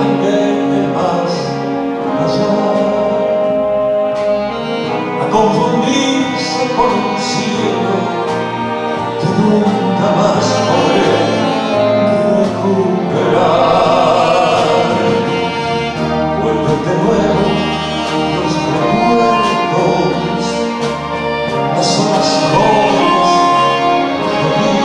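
Live band-orchestra playing a slow song arrangement, with sustained instrumental lines and a male vocalist singing over them.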